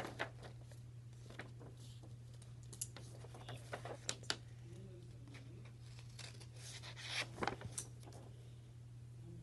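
Scissors snipping through a sheet of paper, with the paper rustling as it is handled: scattered short snips and crinkles, with a busier cluster about seven seconds in. A steady low hum runs underneath.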